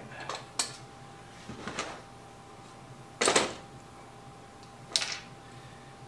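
A few separate knocks and clatters as a cordless drill and the hinge-mortising jig's template are handled on a wooden board. The loudest comes about three seconds in, and a sharp one near the end. No drill motor is running.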